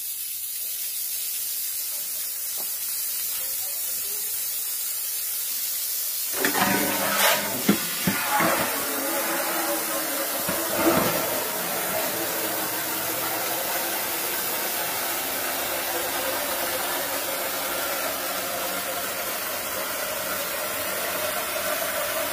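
Water pouring from an open tap in a steady hissing stream, first splattering onto a concrete floor, then from about six seconds in drumming into a metal basin and filling it. There are a few knocks between about six and eleven seconds in.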